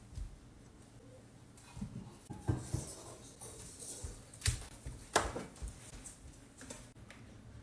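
Scattered light knocks and clicks, the kind made by handling small objects, with the loudest knocks about two and a half, four and a half and five seconds in.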